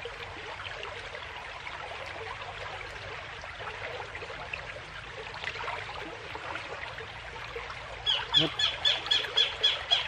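Fast, rain-swollen stream rushing steadily over rocks. About two seconds before the end, a quick run of high squeaks, about five a second, comes in over the water.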